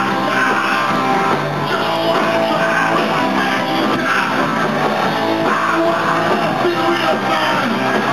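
Live rock band playing loud: electric guitar with drums, continuous.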